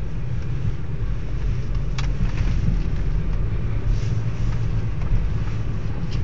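Inside a car's cabin as it pulls away from a traffic light on a rain-wet road: a steady low rumble of engine and road noise, with a few faint clicks about two and four seconds in.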